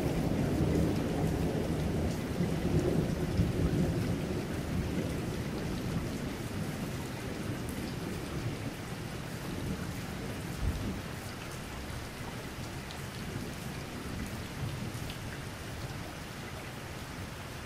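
Thunder rumbling and slowly dying away over steady light rain, with one short low rumble about ten seconds in.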